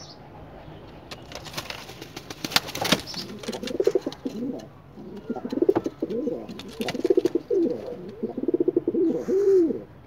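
Bukhara pigeon cooing: a run of rolling, rapidly pulsing low coos starting about three and a half seconds in, the last one falling away just before the end. Before the coos come a few seconds of sharp clicks and rustling.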